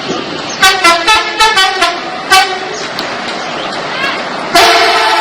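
Indonesian bus 'telolet' musical horn playing a quick tune of about seven short notes at changing pitches, then one long held horn note starting near the end.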